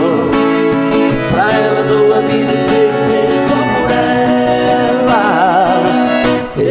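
Live sertanejo music: acoustic guitar and accordion playing a sustained passage of the song, with a wavering melody line over held chords.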